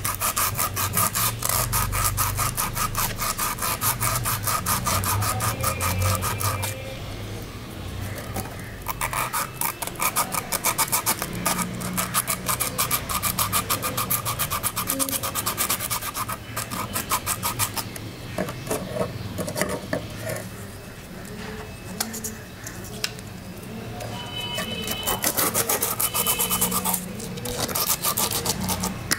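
Rust being scraped off the steel blade of small sewing snips in fast back-and-forth strokes, several a second. It is loudest at the start, gets softer and patchier through the middle, and picks up again near the end.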